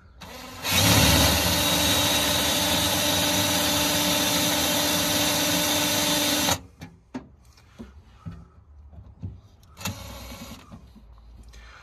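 Bosch cordless drill running steadily with a 6 mm bit in the jeep's painted sheet-metal body panel for about six seconds, then cutting off sharply. Light knocks and clicks follow, with a brief second spin of the drill near the end.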